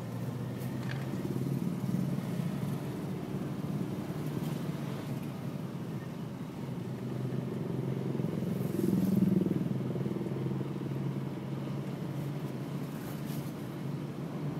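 A motor vehicle's engine running steadily, growing louder for a moment about nine seconds in.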